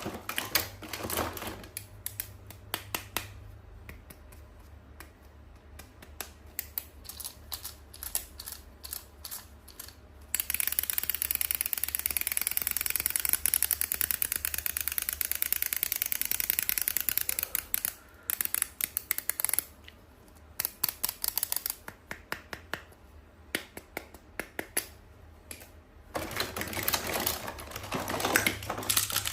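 Toy and packaging handling: rapid small clicks and taps. About ten seconds in there is a long stretch of steady rustling lasting roughly eight seconds, and another burst of rustling near the end.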